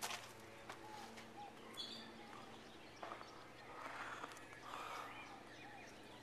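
Faint outdoor ambience with a few short, scattered bird chirps.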